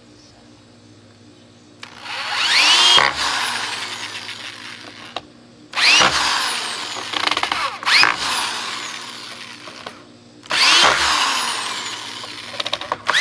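Corded electric drill run in four bursts of a few seconds each at the screw holes of a steel hinge on a wooden board, each burst opening with a rising whine, and a fifth starting at the very end. The first two seconds hold only low background.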